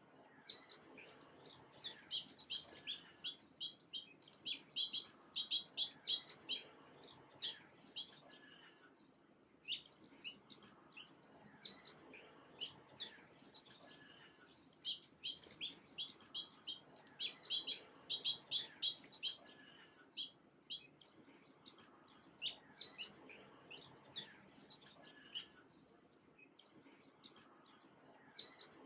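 Small birds chirping in quick runs of short, high notes, the runs coming and going several times with brief lulls between them, over a faint steady background hiss.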